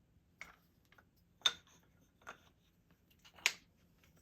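Pieces of cut wood for a picture frame being handled and set against each other, making four light, sharp knocks, the loudest about a second and a half in and near the end.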